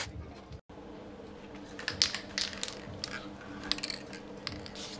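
A welder tack-welding the steel oil sump: a short burst of crackle at the very start. After a cut about half a second in come scattered, irregular light metallic clicks and clatter.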